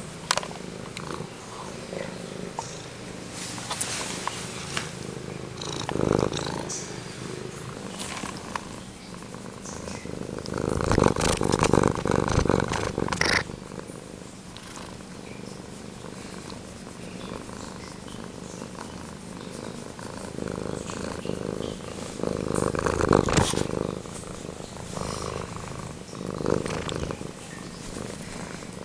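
Domestic cat purring steadily, very close to the microphone, with louder bursts of noise about eleven and twenty-three seconds in.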